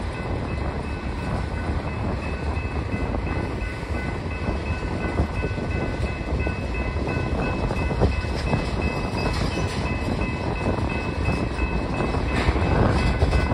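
Freight train of boxcars and empty centerbeam flatcars rolling through a grade crossing: a steady rumble of steel wheels on rail, with a few thin steady high tones over it. Sharp clanks and rattles from the cars come more often and grow louder toward the end.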